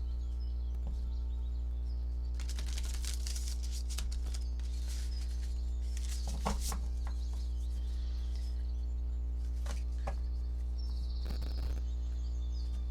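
Tarot cards being shuffled and drawn from the deck, rustling and flicking in short spells, over a steady low drone.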